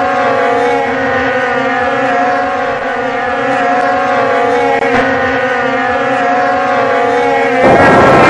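Outboard engines of racing speedboats running flat out, a steady droning whine of several tones. About seven and a half seconds in, the sound turns suddenly louder and rougher.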